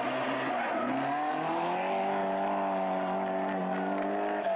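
Rally car engine under hard acceleration, its note rising about a second in and then held high and steady as the car pulls away.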